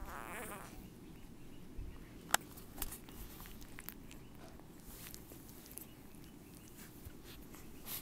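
Six-day-old bullmastiff puppies shuffling on a towel: a brief high squeak right at the start, then soft rustling with a sharp click a couple of seconds in and a few lighter taps.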